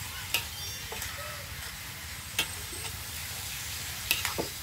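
Shredded carrots and vegetables sizzling in a wok over a wood fire, with a steady hiss, while a metal spatula stirring them clinks against the pan a few times.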